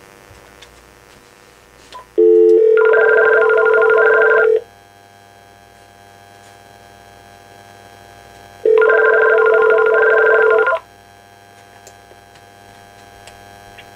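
Electronic telephone ring on a VTech cordless phone system, sounding twice: each ring is about two seconds of steady tone with a warbling trill above it, with about four seconds between rings. This is the call ringing through to the answering machine before it picks up.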